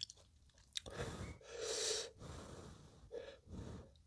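Quiet breaths, the longest about halfway through, with a couple of faint clicks near the start, as ramen noodles are lifted with wooden chopsticks before being eaten.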